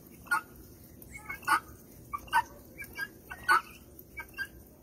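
Pearl helmeted guineafowl calling: a run of short, harsh, rasping calls, several birds overlapping, with a few much louder than the rest.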